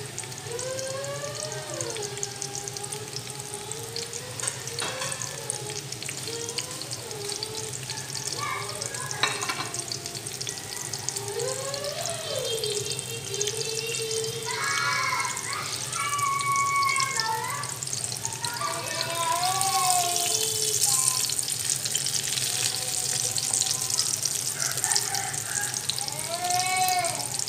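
Oil sizzling under an eggplant omelette frying in a nonstick pan; the sizzle gets louder about halfway through. Background music with gliding, voice-like tones plays over it.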